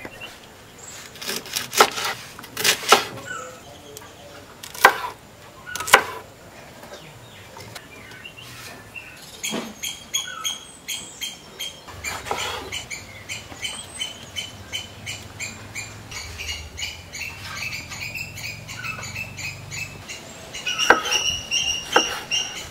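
Kitchen knife chopping vegetables on a wooden cutting board: a few sharp single chops in the first six seconds and a run of quicker cuts near the end. Birds chirp in the background through the middle.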